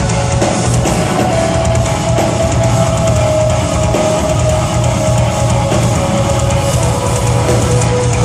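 Metalcore band playing live, heard from the crowd: distorted guitars and drum kit, loud and dense, with a held guitar note sustained over the top, in the closing section of the song.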